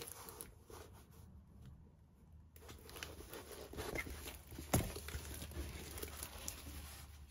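A large diamond-painting canvas being rolled up by hand, its sheet rustling and crinkling as it slides over the table, with one sharp knock a little past halfway.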